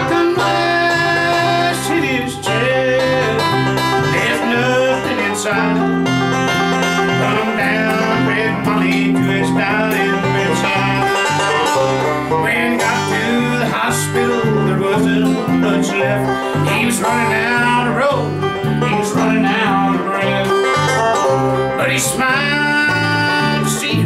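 Bluegrass band playing an instrumental passage: banjo picking, acoustic guitar and mandolin over a steady, alternating bass line.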